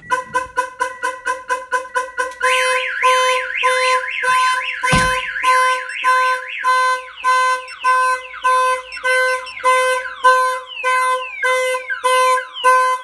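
Viper aftermarket car alarm siren going off after a door is opened while the system is armed. It starts with rapid chirps, switches to a fast warble and then to repeated falling sweeps, with the car horn honking about twice a second. A single thump comes about five seconds in.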